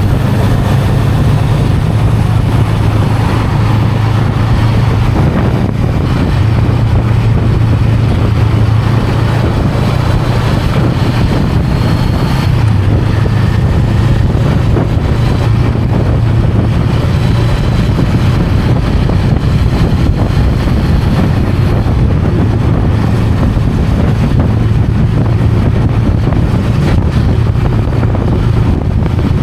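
Honda Rebel 500's parallel-twin engine running at a steady pitch on the move, with wind noise on the microphone.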